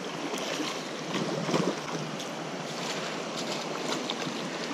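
A hooked brown trout splashing at the surface as it is played in, with the louder splashes about a second and a half in, over the steady rush of river rapids.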